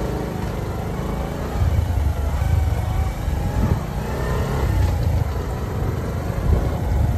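Engine of a moving road vehicle running as it travels along, a steady low rumble that grows louder about a second and a half in.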